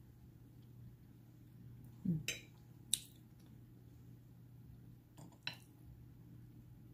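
Stainless steel fork clinking against a crystal glass plate, a few sharp clinks spread over several seconds, with a short murmured "mm" about two seconds in.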